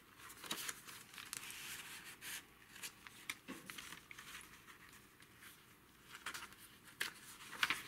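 Faint rustling and soft clicks of paper pages being handled and turned in a handmade junk journal.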